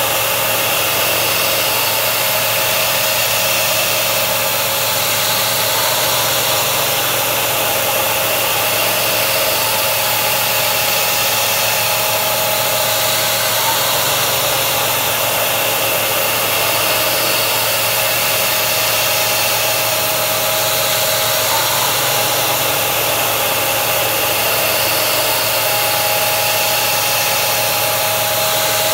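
Milling machine cutting a part with a carbide three-flute end mill under air-driven mist coolant: a loud steady hiss with steady machine tones. The cutting sound swells and eases again about every eight seconds as the toolpath repeats.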